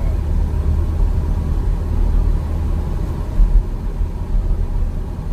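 Steady low rumble of road and engine noise inside a Buick's cabin while driving.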